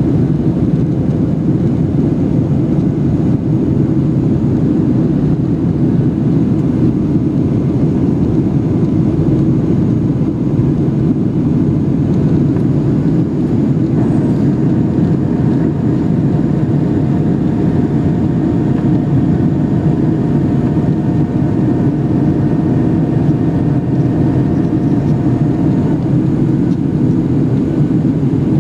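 Cabin noise inside a Boeing 737-800 in flight: the steady, dense rumble of its CFM56-7B turbofan engines and the rushing airflow. About halfway through, a few steady humming tones join in, and they stop again about twelve seconds later.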